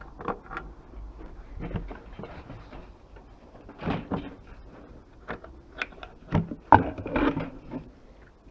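Items being handled and set down: a run of irregular knocks and clunks, the sharpest about two-thirds of the way in.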